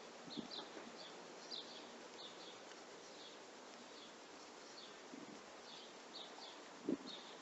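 Small birds chirping, short high chirps coming irregularly every half second or so, with a single dull thump near the end.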